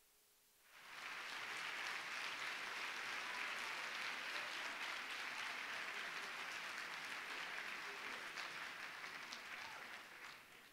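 Audience applauding, starting about a second in, holding steady, and fading out near the end.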